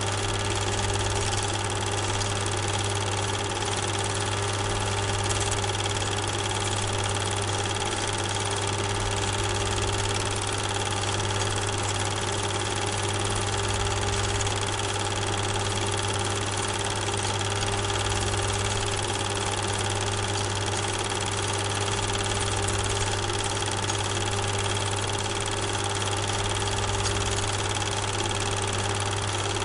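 Steady mechanical running hum with a constant high whine, unchanging throughout.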